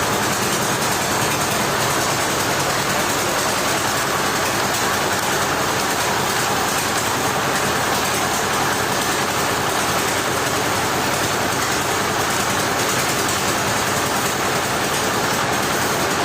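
Sawmill machinery running, a loud steady noise that holds level without a break.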